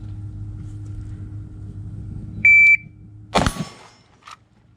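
An electronic shot-timer's start beep: one steady high tone lasting about a third of a second, about halfway in. Under a second later comes a loud sharp bang, then a fainter click.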